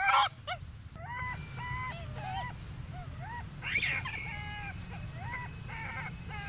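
A baby macaque whimpering: a run of short, arched, high cries, roughly two a second, with one louder cry about halfway through.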